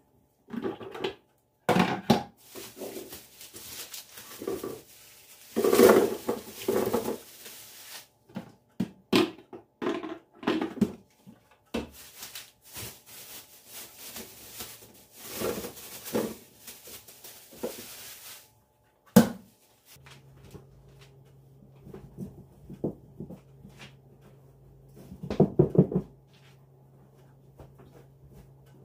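Household handling sounds: irregular knocks, clatters and short rustles. About two-thirds of the way through, a steady low hum starts, with a few more knocks over it.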